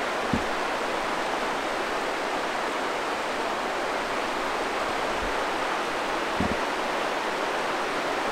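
River water rushing steadily, with a couple of brief soft low thumps.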